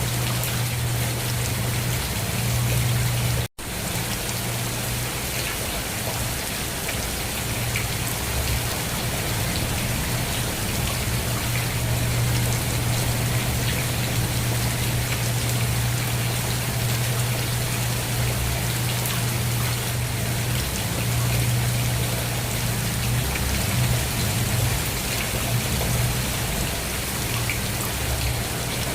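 Steady rain falling, a dense even patter with a steady low rumble underneath. The sound drops out completely for a split second about three and a half seconds in, then carries on unchanged.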